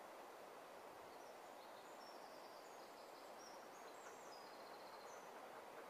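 Near silence: faint steady hiss of woodland room tone, with a small bird singing faintly in short high notes from about a second in until near the end.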